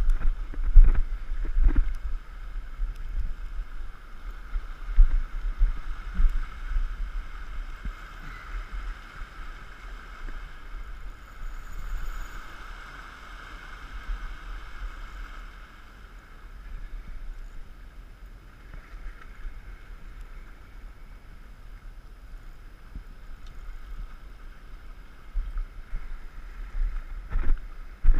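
Wind rumbling on an action camera's microphone in gusts, strongest in the first few seconds and again near the end, over a steady hiss of small sea waves washing against coral rock.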